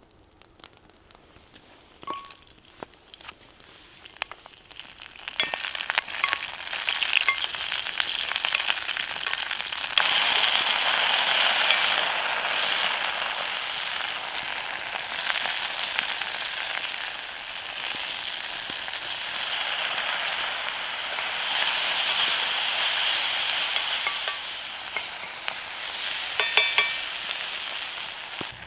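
Green onion pieces frying in hot oil in a Lodge 8-inch cast-iron skillet: a steady sizzle that starts about five seconds in and gets louder about ten seconds in. A few light clicks come near the end.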